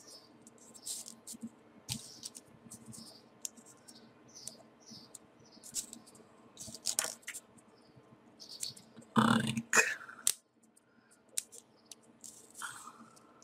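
Folded paper pieces of a 3D origami model being handled and pressed into place: scattered light paper clicks and scratchy rustles, with a louder burst of handling noise lasting about a second a little past nine seconds in.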